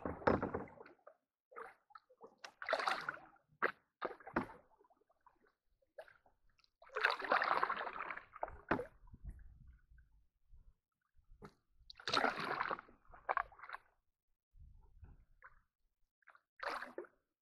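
Canoe paddles dipping and pulling through calm lake water: a splashing swish every few seconds, with quiet gaps between strokes.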